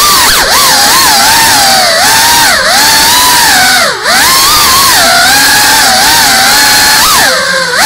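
Brushless motors and ducted propellers of a GEPRC Cinelog 35 cinewhoop drone whining, the pitch rising and falling constantly with the throttle, with brief drops about 4 seconds in and near the end as the throttle is cut.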